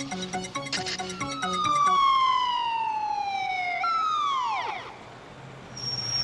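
Police car sirens winding down as the cars pull up: one long falling wail, then a second that drops steeply and dies away. A pulsing, repeating film-score figure fades out in the first second or so, and a brief hiss with a high tone comes near the end.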